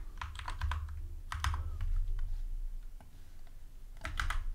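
Typing on a computer keyboard: short bursts of keystrokes separated by pauses.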